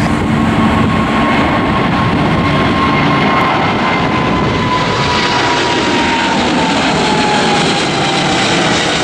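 The twin GE90 turbofan engines of a Boeing 777-300ER at takeoff power as the airliner climbs away: a loud, steady jet roar with a thin whine that slowly drops in pitch.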